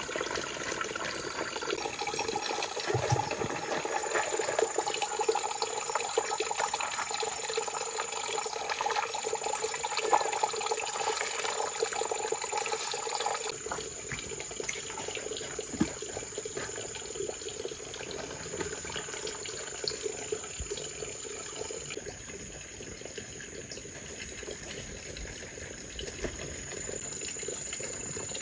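Water running and splashing in a plastic basin as things are washed by hand; the sound changes and drops a little about halfway through.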